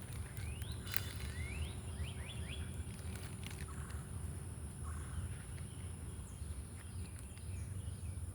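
A bird calling, a handful of short rising chirps in the first few seconds, over a steady low outdoor rumble with a few faint clicks.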